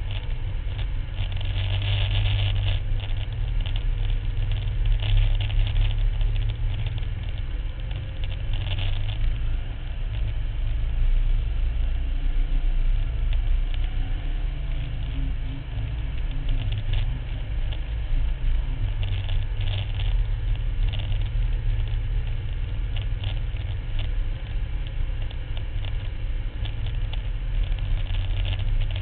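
A Max IV 6x6 ATV's engine running steadily while the vehicle drives over sand, with a rushing, pattering noise over it that flares up now and then.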